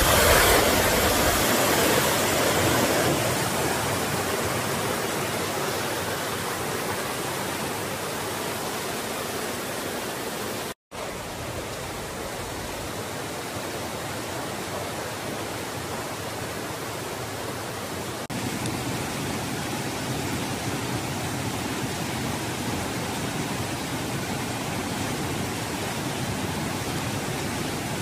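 A steady rushing noise with no voices, loudest at the start, broken by a brief dropout about 11 seconds in and a small jump in level about 18 seconds in.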